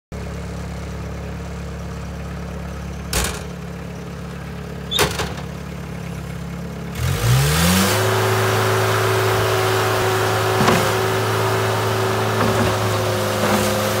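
Bobcat 751 skid steer's diesel engine idling low, with two short knocks a couple of seconds apart. About halfway through, the engine is throttled up and its pitch climbs over a second to a steady higher speed, as the loader moves off and works its bucket.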